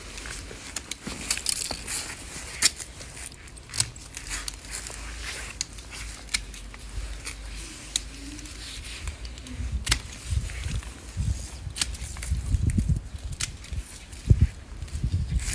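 Bypass pruning shears snipping through thin vine stems: repeated sharp clicks at an uneven pace. A low rumble comes in during the second half.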